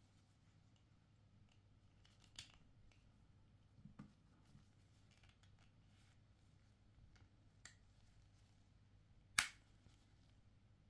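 Small plastic case parts being handled and fitted together, giving a few scattered light clicks and taps, with one sharp snap about nine seconds in as the case is pressed shut.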